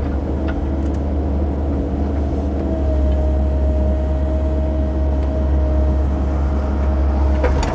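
A CAT 308 mini excavator's diesel engine running steadily, heard from inside the cab, with a steady high whine over the low engine hum and a few light knocks near the start and end.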